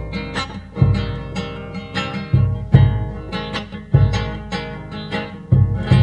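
Background music of a strummed acoustic guitar, with strong accented chords and bass notes about every second.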